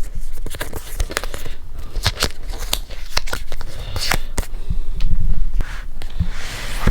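Cardboard and paper packaging being handled and opened, with crackling and a string of sharp clicks, then a longer tearing rustle near the end.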